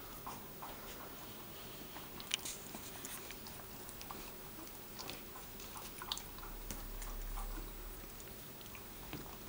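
Puppies play-fighting, mouthing and gnawing at each other: faint scattered little clicks and snaps, one sharper click about two seconds in.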